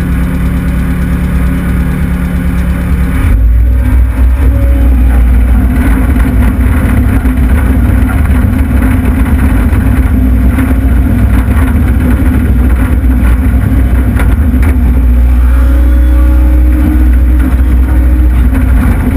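Takeuchi TL26 compact track loader's diesel engine heard from inside the open cab: running steadily at low revs, then throttled up about three seconds in and running loud and steady at working speed while the loader drives and lifts a bucket of dirt.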